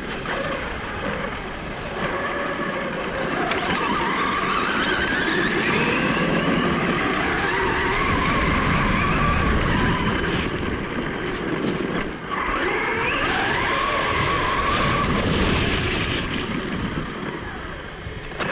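Electric RC car driving, its motor whine rising in pitch as it speeds up, about four seconds in and again about twelve seconds in.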